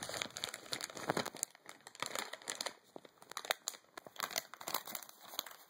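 A bag of cough drops crinkling as it is handled, in irregular crackles with short quieter gaps.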